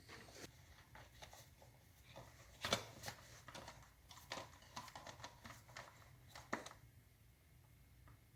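Faint, scattered light clicks and taps of the replacement pressure switch and its bracket being handled and fitted into the compressor's plastic housing. There is a sharper click a little under three seconds in and another a little past six seconds.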